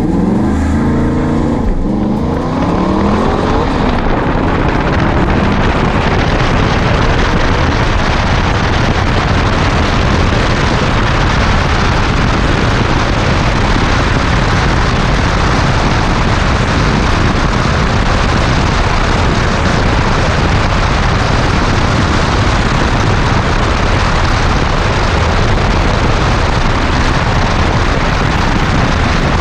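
Aston Martin V8 accelerating hard from a standing start, its pitch climbing in steps through the first gears and then in one longer rise. After about six seconds the car runs flat out, and the engine is buried under a loud, steady rush of wind and road noise on the car-mounted camera.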